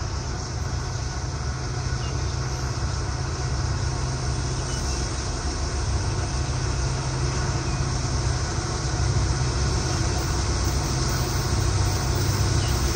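Two Norfolk Southern diesel locomotives hauling a heavy ballast train, their engines working hard under load: a steady low drone that slowly grows louder as they approach.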